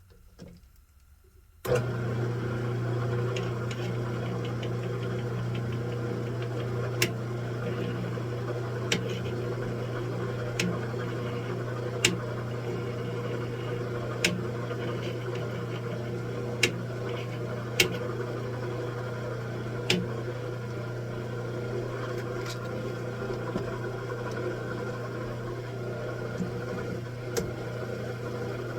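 Metalworking machine tool switched on about two seconds in and running steadily with a low motor hum, a sharp tick sounding every second or two.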